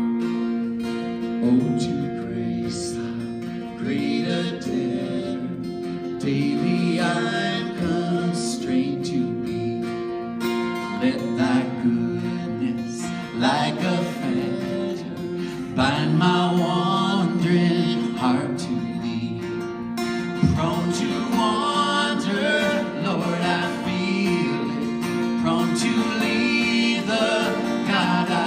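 Two acoustic guitars strummed together while men sing a song, the singing growing fuller a few seconds in.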